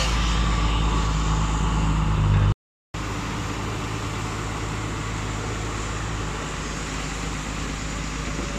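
Diesel engine of a Hitachi UH07-7 floating excavator running steadily, louder in the first two and a half seconds. The sound drops out briefly, then the engine continues under water pouring and splashing from the raised bucket.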